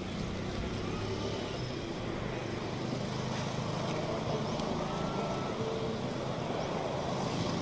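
Steady hum of vehicle engine and traffic noise, continuous and without distinct events.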